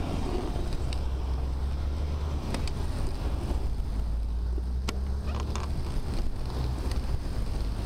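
Wind buffeting the microphone of a bicycle-mounted camera while riding, a steady low rumble. A few sharp clicks from the bike rattling come about a third of the way in and again past the middle.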